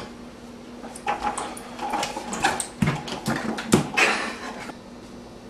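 A steel cooking pot knocking and scraping against a stovetop, a run of clanks from about a second in until near the end.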